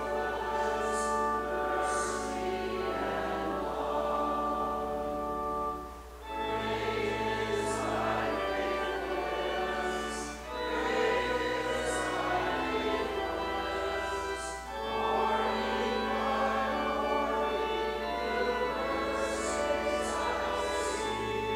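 Congregation singing a hymn in held, slow lines with organ accompaniment and a steady bass underneath, pausing briefly between phrases.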